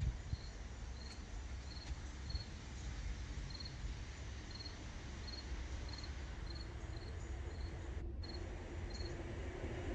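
A cricket chirping steadily: short high chirps repeating about every half second, over a low steady rumble.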